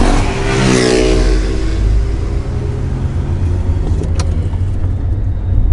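Car on the move: a steady low engine and road rumble, with the engine note falling in pitch over the first second or so. A sharp click comes about four seconds in.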